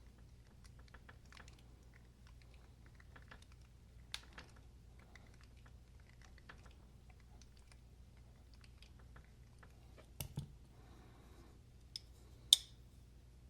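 Faint small clicks and taps of a Kansept ODD 21 flipper knife being handled after reassembly. A few sharper clicks come near the end, one much louder than the rest.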